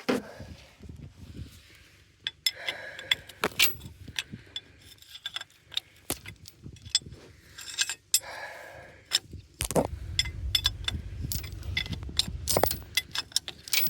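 Scattered metal clicks and clinks of hand tools and fittings being handled at a snowplow's hydraulic pump, with some rustling of handling. A low rumble joins about ten seconds in.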